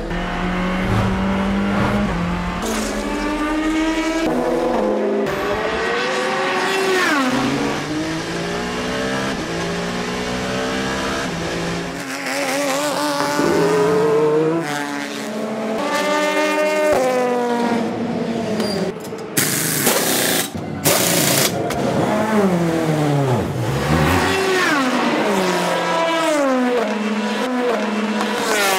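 Endurance race cars' engines at full throttle, revving up through the gears, dropping on downshifts and falling in pitch as cars pass by, one car after another. About two-thirds of the way through come two brief loud blasts of hiss.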